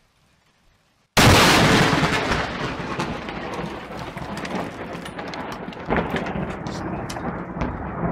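Near silence, then about a second in a sudden, very loud crack of a close lightning strike's thunder, followed by a rumble with scattered sharp crackles that slowly fades.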